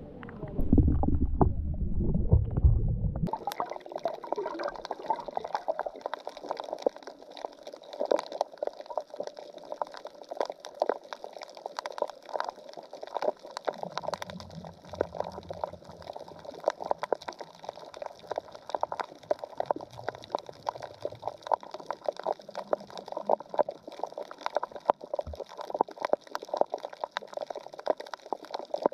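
Underwater sound on a coral reef: a dense, irregular crackle of countless tiny clicks, the reef noise of snapping shrimp. It follows a low underwater rumble of water moving past the camera in the first three seconds, which cuts off abruptly.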